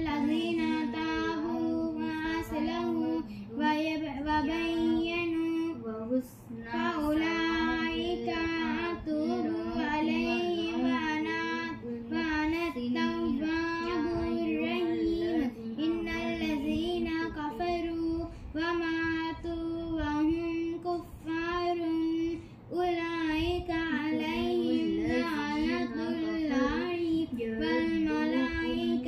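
A young girl's voice chanting Quran recitation in Arabic, in long melodic phrases with held notes and ornamented turns, pausing briefly for breath a few times.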